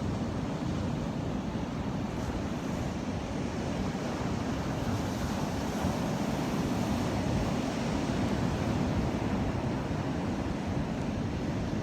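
Ocean waves washing in continuously, a steady rushing with a strong low rumble that swells a little in the later part.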